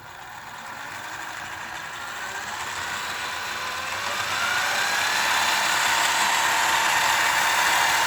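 Faulhaber 3557K006C electric motor and gearbox of a Wedico CAT 740 model truck running on test, with a whine that rises steadily in pitch and loudness as it speeds up, then holds steady. Said to be really quiet; the remaining noise is thought to come from the planetary gears.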